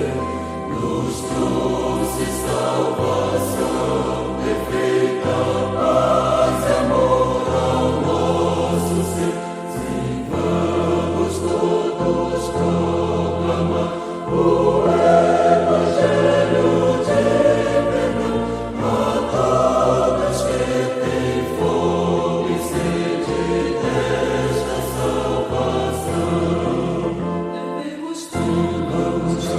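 Church choir singing a Pentecostal gospel hymn with instrumental accompaniment: sustained low bass notes under the voices and sharp high strokes recurring throughout.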